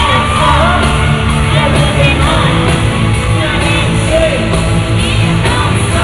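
Live pop song played loud through an arena sound system, with a heavy steady bass and a male singer on the microphone. Fans scream over it in short high-pitched shrieks.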